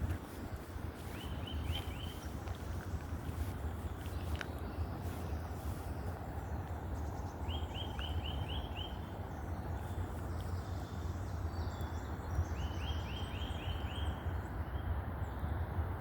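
A songbird singing a short phrase of five or six quick repeated notes, three times about five seconds apart, over a steady low rumble.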